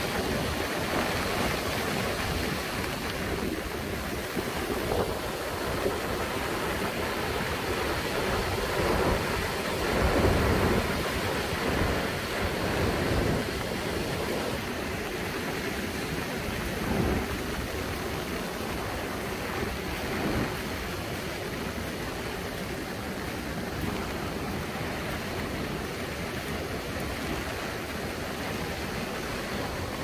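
Heavy storm surf breaking and washing up a sandy beach: a continuous wash of noise that swells louder about ten seconds in.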